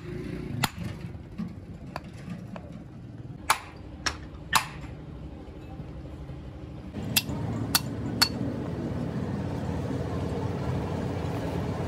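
Hammer striking a Hino truck's steering gearbox: sharp metallic clanks at irregular intervals, three close together around the middle and three more a few seconds later, over a low steady rumble from about seven seconds in.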